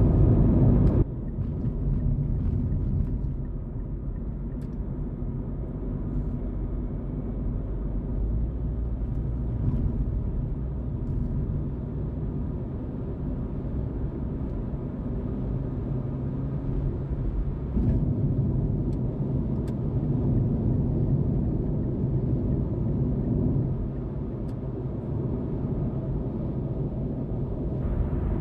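Car driving along a road: steady low rumble of tyres and engine, as heard from inside the car, dropping in level about a second in.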